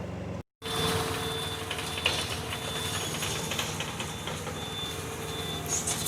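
Heavy machinery engine running, with a reversing alarm beeping on and off. The sound cuts out for a moment about half a second in.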